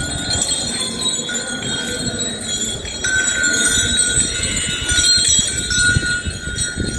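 Bells on a temple elephant's neck chain jingling continuously as the elephant sways, with ringing tones that come and go.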